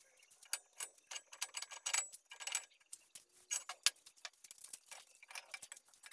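Rapid, irregular light metallic clicks and knocks from a lathe chuck being loosened and a welded steel bearing-housing block being handled and lifted out of it.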